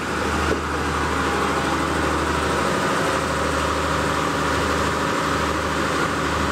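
Sri Lanka Railways S14 diesel multiple unit passing slowly at close range, its diesel engine running as a steady low drone. A steady higher hiss and a faint whine sit over the drone.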